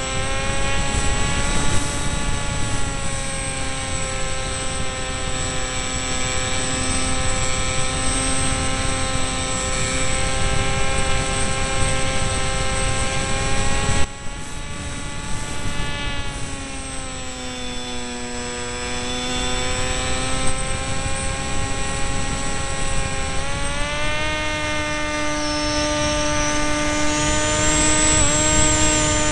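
Electric motor and propeller of an RC delta-wing model, heard from a camera on board: a steady whine over a rush of wind. Throttle changes shift its pitch. It drops in pitch about halfway through and rises again in the last few seconds.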